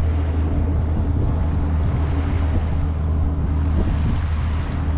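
A steady low mechanical hum, like an engine running, under wind buffeting the microphone and small waves washing onto a sandy shore.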